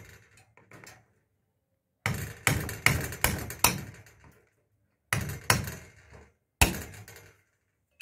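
Hammer blows on a tool held against a metal electricity meter base, knocking a hole through it. There are about nine sharp strikes, each ringing briefly: one at the start, a quick run of five a couple of seconds in, then three more spaced out.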